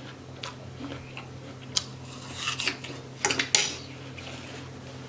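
Tableware being handled during eating: a few short clinks and clatters, bunched about two and a half and three and a half seconds in, the last one the loudest.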